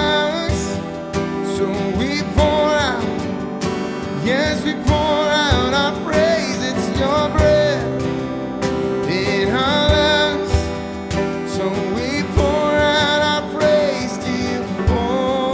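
Worship band music: acoustic guitar chords with a gliding, wavering melody line over them and no sung words.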